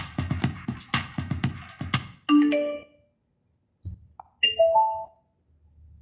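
Electronic music with a steady drum-machine beat playing from a modified car radio, stopping abruptly about two seconds in. Then come two short runs of rising chime-like notes a couple of seconds apart.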